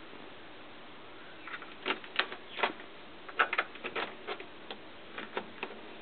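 Irregular clicks and knocks of RCA plugs being pushed into the composite AV jacks on the back of a TV and bumping against its plastic back panel. About fifteen short clicks come in an uneven run, starting about a second and a half in.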